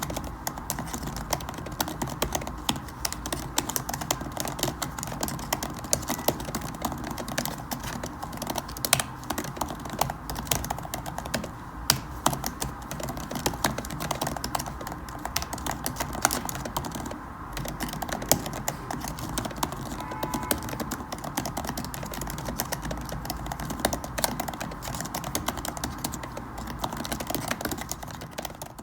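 Someone typing steadily on a computer keyboard: a continuous run of quick, irregular key clicks.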